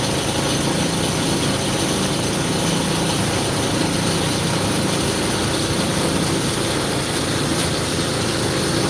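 Water tanker truck's engine running steadily to drive the pump for a high-pressure hose, with the steady hiss of the water jet spraying.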